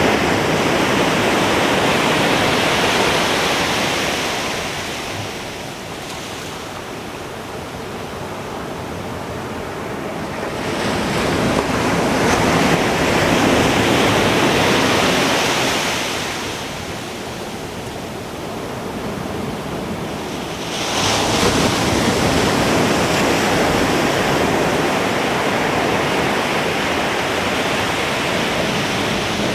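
Ocean waves breaking on a beach in three surges, each a rushing hiss that swells and fades, with lulls between them. A wave crashes in sharply about 21 seconds in. Some wind noise on the microphone.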